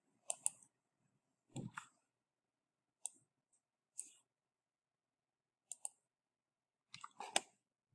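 Faint clicks of a computer mouse and keyboard: short, sharp clicks every second or so, some in quick pairs, with a duller knock about one and a half seconds in and a cluster of clicks near the end.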